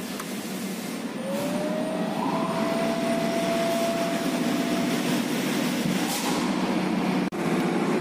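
Steady machine hum and rumble. About a second in it grows louder as a thin tone rises and then holds steady for a few seconds, like a motor spinning up. The sound cuts out for a moment near the end.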